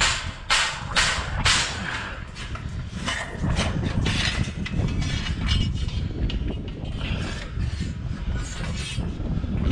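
Steel hog-trap panels and a gate rod rattling and clanking as they are handled, with sharp clanks about two a second at the start, then a busier, irregular clatter over a steady low rumble.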